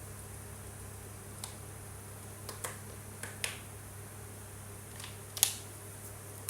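Scattered light clicks and taps, about six of them, the loudest about five and a half seconds in, over a steady low hum.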